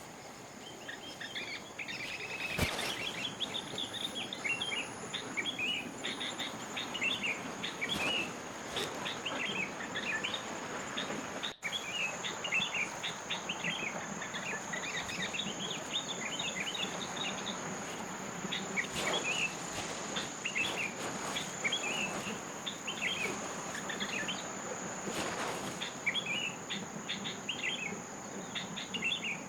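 Forest ambience: many short bird chirps and twitters over a steady high insect drone, which grows louder after a brief dropout about twelve seconds in. A few soft knocks or rustles are also heard.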